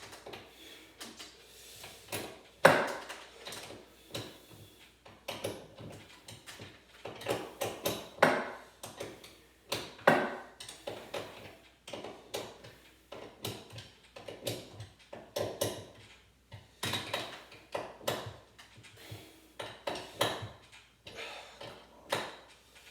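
Scattered metallic clinks, clatters and knocks of hand tools and garage door hardware being handled, coming at irregular intervals, with a sharp knock about two and a half seconds in.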